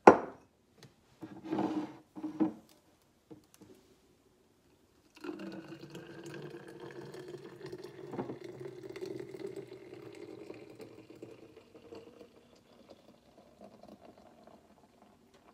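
A sharp knock, then a few lighter handling knocks, as a glass bottle is set down on the counter. From about five seconds in, fresh green juice pours from a plastic jug into the glass bottle, a steady pour that slowly tapers off near the end.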